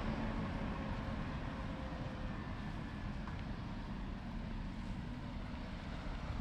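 Steady low rumble of vehicle noise, with a faint engine hum running through it.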